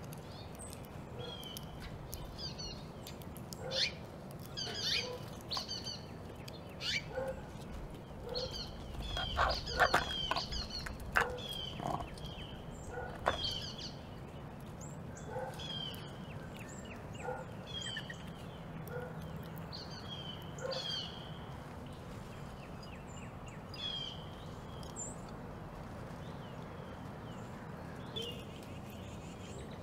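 Backyard birds chirping over and over, short high calls every second or two. A cluster of sharp clicks and knocks comes about ten seconds in.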